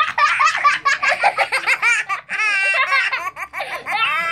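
Small children giggling and belly-laughing in quick, high-pitched bursts, with one longer, wavering high laugh a little past the middle.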